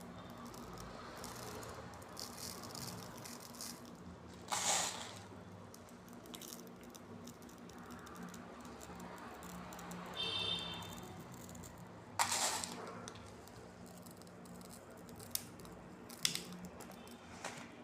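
Kitchen handling sounds during food preparation: utensils and dishes rattling, with a few brief louder clatters and one short ringing clink about ten seconds in, over a steady low hum.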